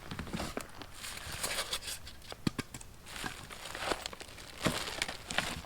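Cardboard box and packing materials being opened and handled by hand: irregular crinkling and rustling with scattered knocks and taps.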